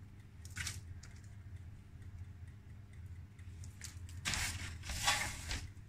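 Rustling and light patter of hands scattering sliced almonds over puff pastry on parchment paper, heard as a brief rustle just after the start and a longer, louder one about four seconds in, over a low steady hum.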